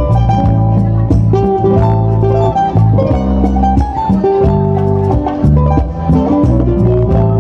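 A romantic-style guitar trio playing live: a requinto picks a run of quick melodic notes over strummed acoustic guitar and a steady electric bass line.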